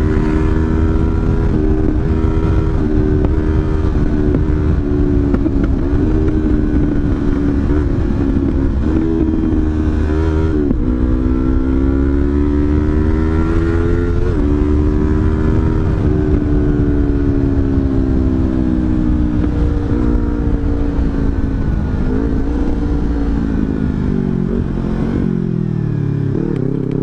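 Yamaha MT-25's 250 cc parallel-twin engine through a Sakura aftermarket exhaust, heard from the rider's seat while riding. The pitch rises and falls with the throttle, dropping suddenly at gear changes about ten and fourteen seconds in, then sinks as the bike slows near the end.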